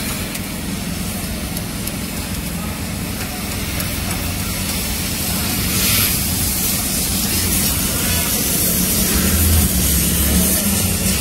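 Steady whirring rush with a low mains hum, typical of an idling arc-welding machine's transformer and cooling fan. A short scrape about six seconds in, as slag is knocked off the fresh weld bead.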